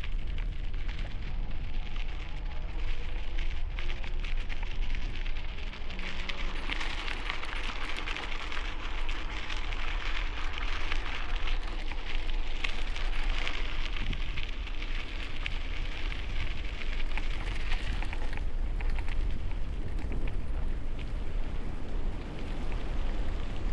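Bicycle tyres rolling over a rough dirt trail as a steady, dense crackle of fine clicks, with low wind rumble on the helmet-mounted microphone.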